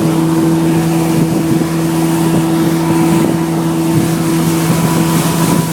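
Motorboat engine running at a steady speed, a constant drone with no change in pitch, over the rush of the boat moving through the water.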